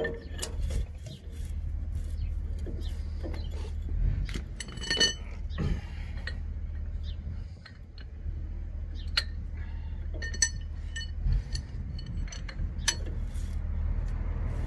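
Metal tools and truck hub parts clinking and knocking together during hub and brake work, several strikes ringing on briefly, over a steady low hum.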